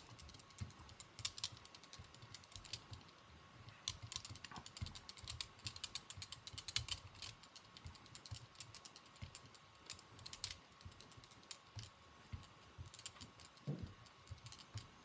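Faint, irregular clicks and light taps from hand work at a fly-tying vise as silk thread is wrapped tightly onto a salmon fly hook.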